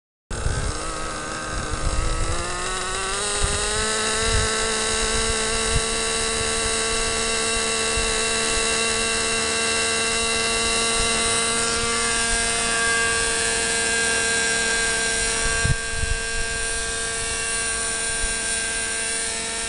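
Radio-controlled model helicopter spooling up, its whine rising in pitch over the first few seconds, then holding a steady high whine as it lifts off and flies. A few low thumps sound underneath.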